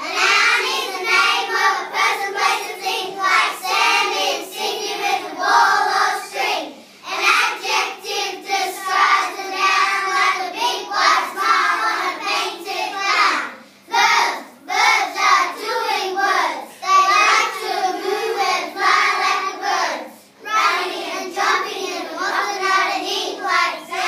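A group of young children singing together in unison, in phrases broken by brief pauses for breath about every seven seconds.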